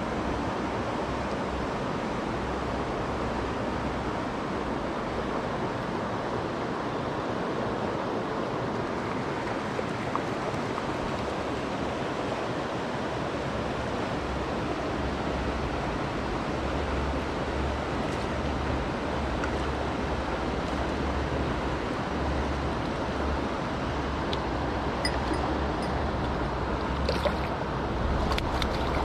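Steady rush of a mountain stream's flowing water, with a low wind rumble on the microphone at times. A few sharp clicks come near the end.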